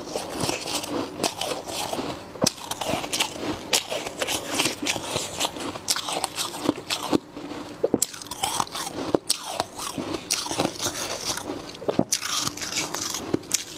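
Soft freezer frost being bitten and chewed: an irregular run of crisp crunches and crackles, with a short pause about seven seconds in.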